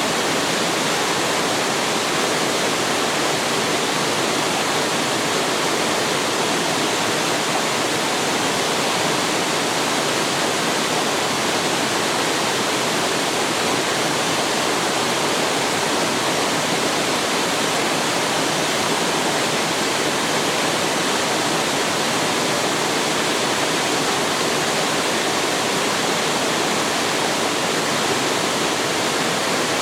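Waterfall pouring steadily into a mountain stream, a constant even rush of falling water.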